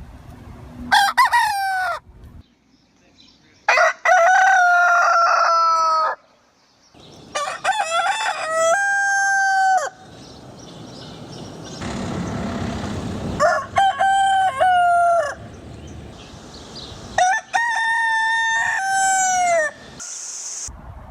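Roosters crowing: about five cock-a-doodle-doo crows one after another, each ending in a drawn-out note that falls in pitch. Some break off abruptly.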